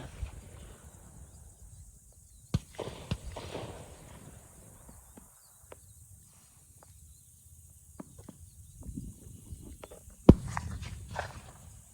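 Rustling movement with a few sharp knocks: two about two and a half and three seconds in, and a louder one about ten seconds in.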